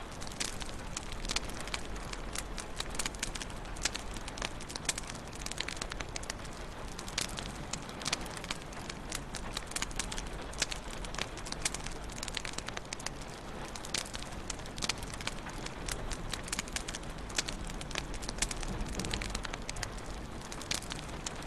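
Wood fire crackling in a fireplace: a steady soft hiss with many quick, irregular pops and snaps.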